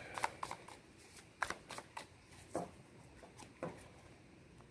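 Tarot cards from a Light Seers Tarot deck being shuffled and handled, a scattering of quick, irregular card snaps and flicks.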